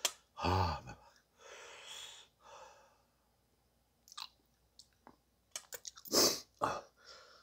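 A man eating very spicy food: a short groan from the heat, then hissing breaths out through the mouth, then chewing and mouth noises with a loud sharp breath about six seconds in.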